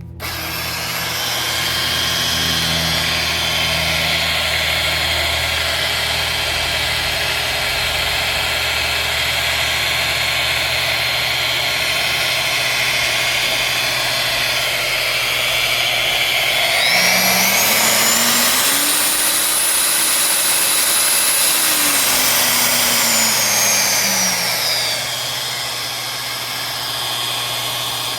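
Metabo magnetic core drill's electric motor running steadily. It rises in pitch a little past halfway through, holds there, then drops back down near the end.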